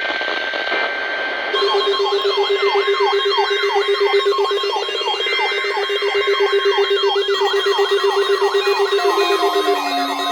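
Radio hiss with faint steady tones, then about a second and a half in, loud electronic alarm tones begin: several overlapping siren-like sweeps repeating about three times a second over steady tones, with more gliding tones near the end.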